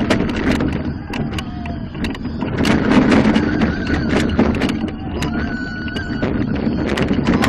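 Onboard sound of an inverted roller coaster running at speed: a steady rush of wind over the microphone, with the train rattling and clattering on the track in many sharp knocks. Riders scream and laugh now and then, in short, high cries.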